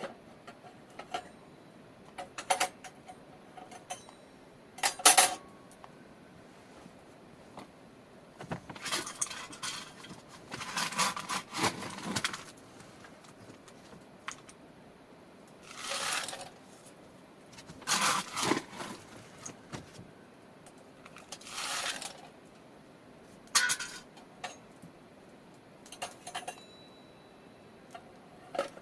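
Intermittent clinks, rattles and scrapes of small hard objects being handled, in separate bursts a second or two apart, with a sharp clatter about five seconds in.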